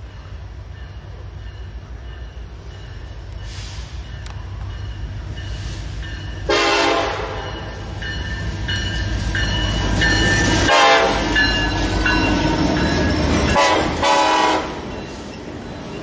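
Nathan Airchime K5LLA five-chime air horn on a CN freight diesel locomotive sounding several blasts over the low rumble of the train. There is a short blast about six and a half seconds in, then a longer sounding from about eleven seconds, and another short blast near fourteen seconds.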